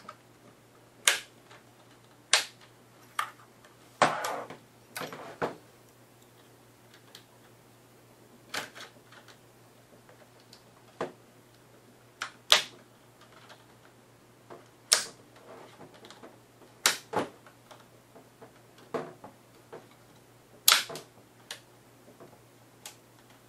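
Plastic snap clips of an Acer Aspire One netbook's LCD screen bezel popping free as the bezel is pried off, about fifteen sharp snaps at irregular intervals. About four seconds in there is a longer crackle of plastic.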